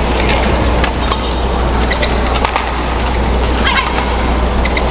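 Badminton rally: rackets striking the shuttlecock with sharp clicks and players' shoes squeaking on the court mat, over a steady arena hum.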